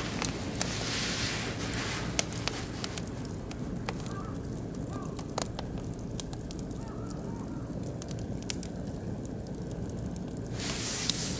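Oak and beech wood fire crackling in a barbecue grill, with scattered sharp pops over a steady low rumble of the flames and a hissing rush near the start and again near the end.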